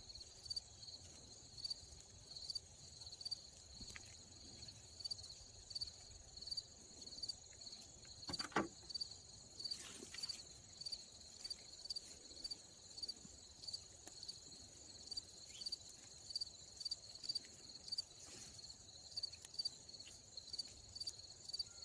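Crickets chirping in a steady, even rhythm of short high chirps, over a continuous high insect trill. One thump about eight and a half seconds in and a brief rustling scrape soon after.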